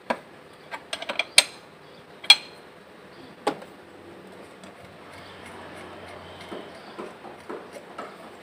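A steel open-end spanner clinking on the fuel-filter bleed screw of a Mitsubishi Canter diesel engine, a handful of sharp metal clicks in the first three seconds or so. Then the hand priming pump is worked, soft ticks about twice a second, pushing diesel through the empty filters to force the air out at the loosened bleed screw.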